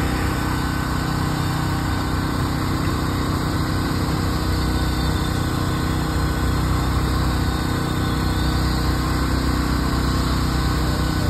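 An engine idling steadily, with no change in speed.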